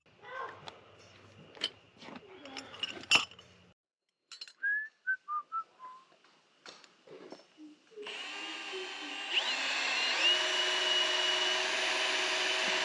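Cordless drill boring into a metal hinge plate, running steadily from about eight seconds in with a high whine from the bit cutting the metal. Before that, clinks and clatter of metal parts and tools being handled on the bench.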